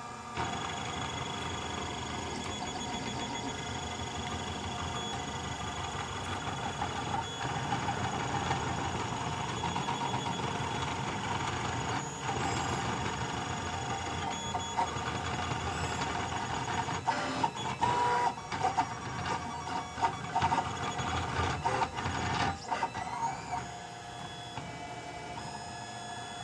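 Printrbot 3D printer's stepper motors whining steadily as it prints, the pitch shifting as the head changes moves. About two-thirds of the way through come a run of quick, clicking short moves and a few rising and falling glides.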